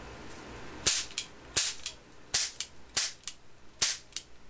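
Bronco 44 die-cast metal cap pistol firing paper roll caps: five sharp pops in a row, about one every 0.7 s, with fainter clicks of the hammer and turning cylinder between shots.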